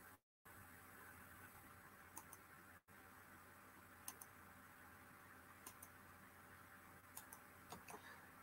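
Faint computer mouse clicks, mostly in quick pairs every second and a half or so, over a steady low hum and hiss of room tone. The audio cuts out completely twice, near the start and about three seconds in.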